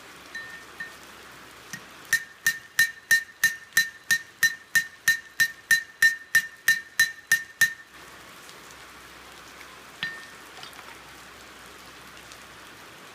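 A hammer tapping the pivot pin of steel ear marking pliers on an anvil, peening the pin to take up side play. It gives about twenty quick light taps, about three a second, each with a high metallic ring, then one more tap a couple of seconds later.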